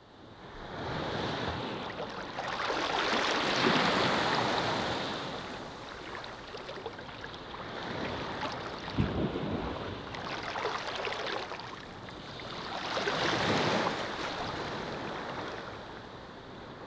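Ocean surf: waves breaking and washing in, swelling loudest twice, a few seconds in and again near the end, with smaller surges between.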